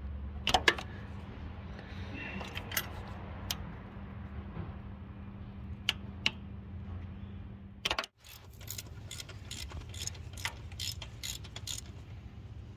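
Metal hand tools clinking against engine parts in scattered single clicks, then from about eight seconds in a run of quick, regular clicks, about three or four a second, as a ratchet wrench on a long extension turns a fastener deep in the engine valley. A steady low hum runs underneath.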